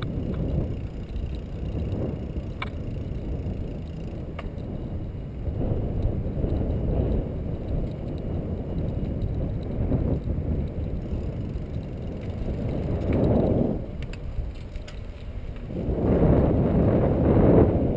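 Wind noise buffeting the microphone of a camera held out from a moving bicycle, with a few faint clicks and rattles from the bike; the wind swells louder a couple of times, most strongly near the end.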